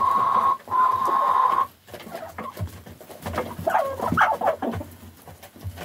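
Chickens pecking feed from a trough, a rapid scatter of small clicks, with short clucking calls from a hen about three and a half to four and a half seconds in. At the start a loud steady high tone sounds and cuts off suddenly about a second and a half in.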